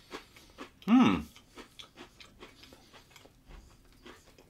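A person chewing a mouthful of pâté on a ration biscuit, with many soft, short mouth clicks and crunches. About a second in, a short hummed "mm" whose pitch rises and falls.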